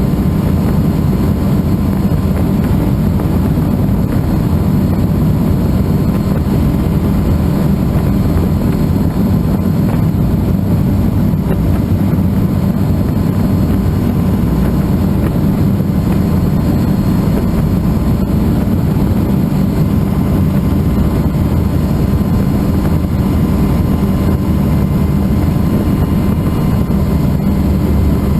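Helicycle kit helicopter in steady flight: continuous rotor and Solar T62T-32 turbine engine noise, heavy and low, with a faint steady whine above it.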